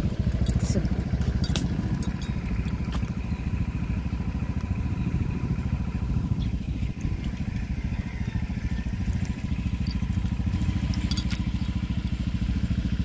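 Motorcycle engine running steadily while riding, with a few light clicks and rattles over it.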